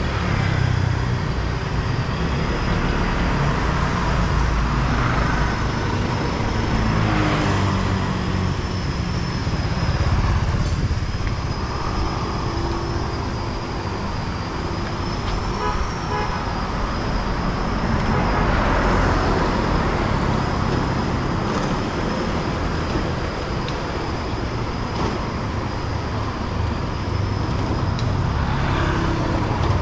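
City street traffic: motor vehicles running and passing close by, swelling and fading as each goes past, with short horn toots now and then.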